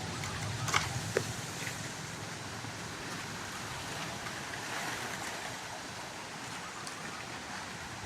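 Wind moving through the trees in a steady rush of rustling leaves, with wind buffeting the microphone early on and a couple of sharp crackles about a second in.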